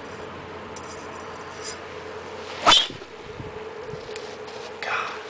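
Golf driver striking a teed ball once, a single sharp pop about two and a half seconds in, followed near the end by a short rustle.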